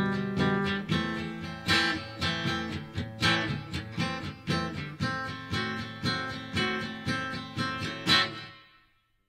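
Background music: solo acoustic guitar strumming the closing bars of a song, with evenly spaced strums. A last strum about eight seconds in rings out and fades to silence.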